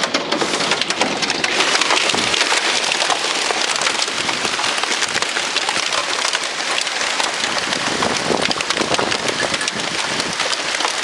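Large hailstones, about an inch across, pelting down in a heavy hailstorm: a steady, dense rattle of countless small impacts mixed with the hiss of rain.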